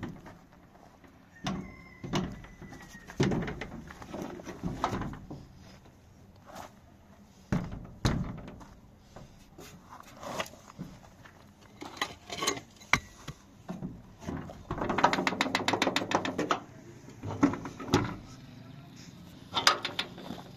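Sheet-metal panels and doors being handled and fitted: scattered knocks, thuds and metal rattles, with a quick run of rattling clicks about fifteen seconds in.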